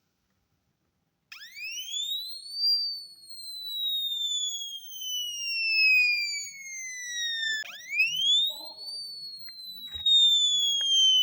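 A simple homemade electronic siren circuit sounding. After about a second of silence, a buzzy tone sweeps quickly up in pitch, then glides slowly down over about five seconds. The quick rise and slow fall then repeat.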